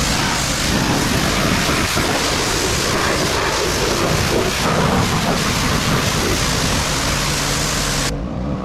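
Pressure washer spraying water at the car, a loud hiss of water jet and spray over the machine's steady motor hum. Near the end the spray stops and only the motor hum is left.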